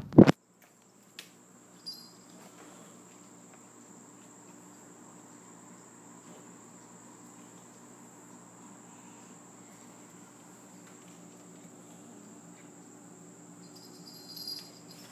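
A steady low hum of a quiet room, with a sharp knock right at the start and two faint knocks soon after. Near the end a faint high chirping starts up in short, evenly repeated pulses.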